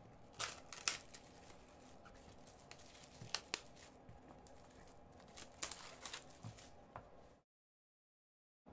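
Clear plastic shrink-wrap being peeled and crumpled off a hockey card box by gloved hands: soft rustling with scattered sharp crackles. The sound cuts off abruptly to dead silence about seven seconds in.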